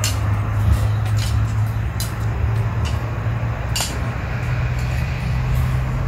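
A steady low mechanical hum, as of an engine or motor running in the background, with a few light clicks.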